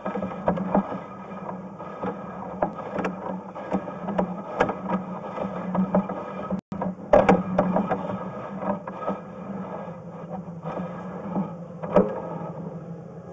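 Sewer inspection camera's push cable being fed down a 4-inch sewer line, with irregular clicks and rattles and louder clatters about seven seconds and twelve seconds in, over a steady low hum.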